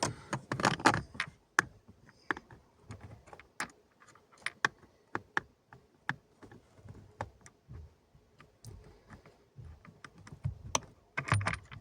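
Irregular small clicks and taps of metal on metal, several a second, as tweezers handle a small nut and set it onto the heater motor's mounting stud. A little scraping and rustling comes near the start and again near the end.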